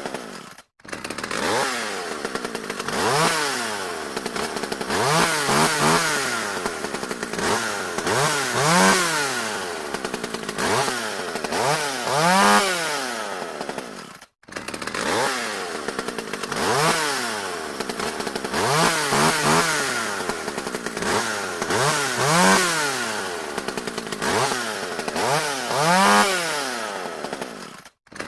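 Two-stroke chainsaw engine revved again and again, its pitch rising and falling every second or two. The sound cuts out for a moment twice, about a second in and about halfway through.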